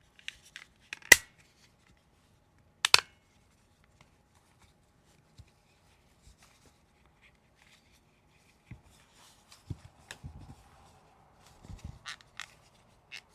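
Plastic TV remote housing parts being handled and fitted together: two sharp, loud snaps about one and three seconds in, then a run of quieter clicks and handling noise near the end.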